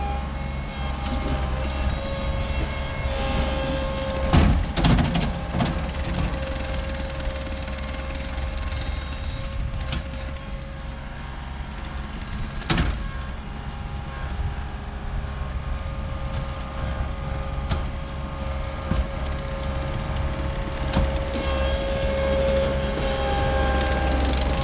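ASV RT40 compact track loader's diesel engine running steadily with a constant whine while the machine pushes dirt with its bucket. It is louder near the start and end, and a few sharp knocks come about four to five seconds in and again near thirteen seconds.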